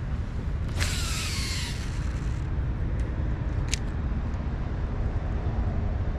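A cast with a fishing rod: about a second in, a brief whoosh of line paying out that falls in pitch, then a single sharp click a few seconds later. Steady wind rumble on the microphone runs underneath.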